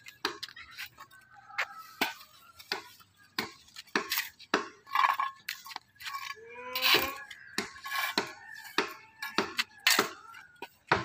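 Steel shovel blade scraping and clinking against concrete as cement mortar is scooped and packed into a cracked joint: irregular sharp scrapes and knocks, about one or two a second.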